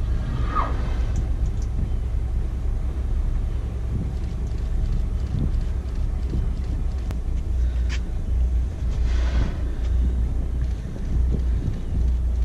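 The trawler's engine running with a steady low rumble, and a short rushing hiss about nine seconds in.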